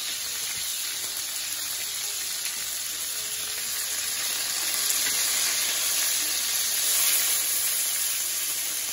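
Beef tenderloin steaks sizzling in hot oil in a cast-iron skillet as they sear: a steady high hiss that grows a little louder in the middle.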